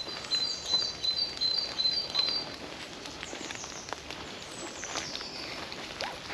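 Woodland songbirds singing: one bird repeats a high two-note phrase about seven times in quick succession over the first two and a half seconds, while others chirp, and a falling trill comes in around five seconds.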